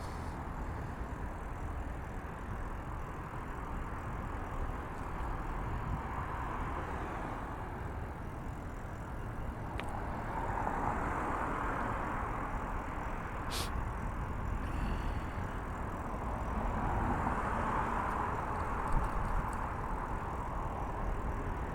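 Road traffic going by on a busy street: a steady low rumble, with the hiss of tyres swelling as cars pass about halfway through and again near the end.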